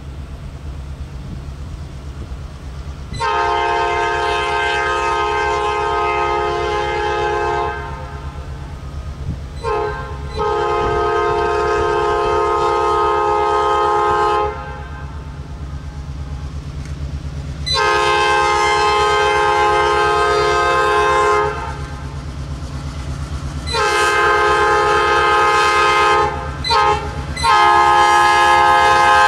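Norfolk Southern diesel road locomotive sounding its multi-note air horn as it approaches, in a series of long blasts broken by a couple of short ones, the last blasts loudest as it draws near. The diesel engine rumbles low underneath throughout.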